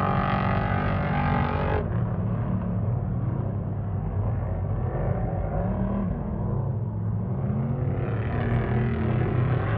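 Off-road race vehicle engines. A loud, bright engine sound drops abruptly about two seconds in to a lower, duller engine drone whose revs rise and fall, and the sound grows brighter again near the end.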